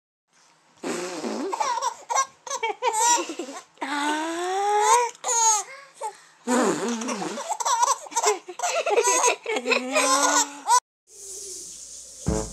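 Baby laughing in repeated bouts of giggles and squealing laughs, the pitch bouncing up and down, stopping suddenly near the end.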